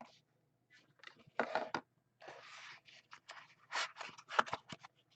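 Trading cards and their packaging handled at close range: a series of short scrapes and rustles with a few light clicks, and one longer scraping slide about two seconds in.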